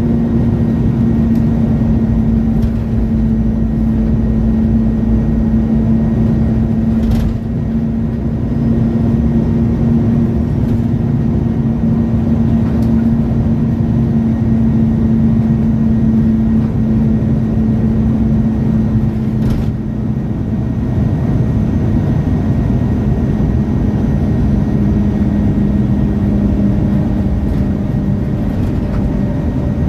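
MAN A23 Lion's City G articulated bus idling at a stop, a steady hum that drops slightly in pitch about two-thirds of the way through. A couple of brief clicks come in between.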